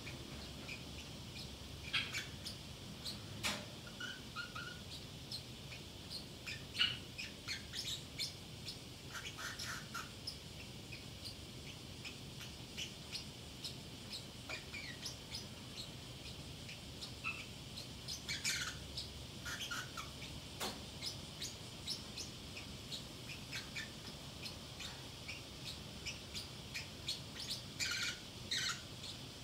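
Pacific parrotlet chirping and chattering in short, squeaky bursts every few seconds, including repeated attempts at saying its own name.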